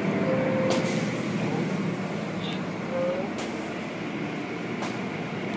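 Automatic car wash tunnel running: a steady wash of water spray and machinery noise, with a few sharp clicks.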